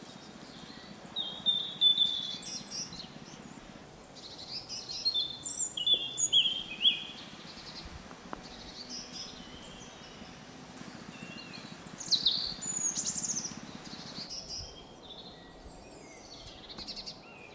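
Birds chirping and calling in several short flurries over a steady low outdoor hiss.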